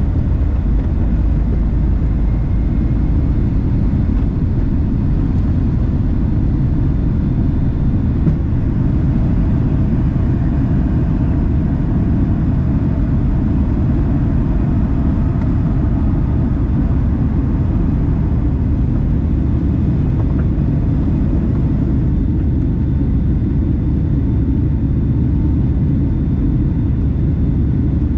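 Boeing 757-300 cabin noise heard beside the wing during takeoff and the first climb: the engines run at high power as a loud, steady low rumble, with faint wavering tones above it.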